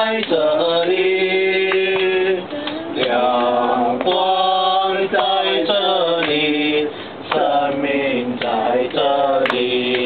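A Chinese Christian worship song sung in long held phrases, led by a man singing into a handheld microphone, with others singing along.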